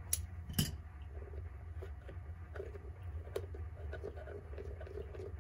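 Small clicks and light scraping as the metal retaining ring around the clock's rear switch is turned loose, with two sharper clicks in the first second and lighter clicks after.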